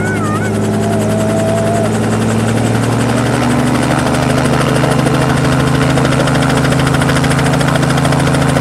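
Robinson R44 helicopter running: a steady engine drone with the rapid chop of the rotor blades. About three seconds in, the pitch rises slightly and it grows louder.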